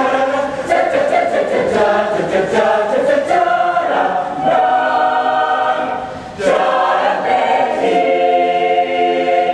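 Mixed-voice choir singing a cappella. Over the first few seconds short, sharp rhythmic ticks run under the voices. Then the choir holds long chords, drops away briefly a little past the middle, and comes back in loudly on a sustained chord.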